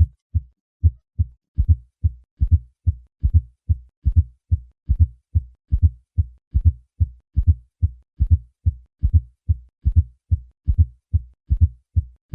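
Heart sounds with a fourth heart sound: a low-pitched triple, galloping rhythm, an extra thud just before each first heart sound and then the second, at about 70 beats a minute. This atrial gallop is the sign of a stiff, non-compliant left ventricle, often from hypertrophy.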